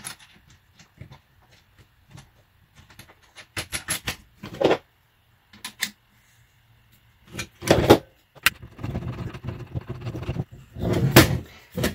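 Handling noise as a telescope tripod leg is put back together: scattered small clicks and taps of a bolt and nut being fitted by hand into the aluminium leg's plastic end piece, with louder knocks about eight seconds in and near the end as the leg is moved on the tabletop.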